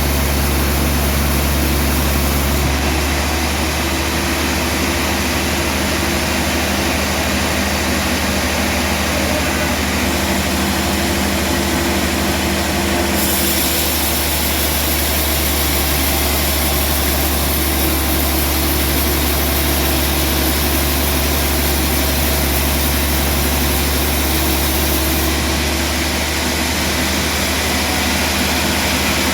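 Sawmill machinery running steadily with a loud, low engine hum. Partway through, a brighter hiss joins for about twelve seconds and then drops away.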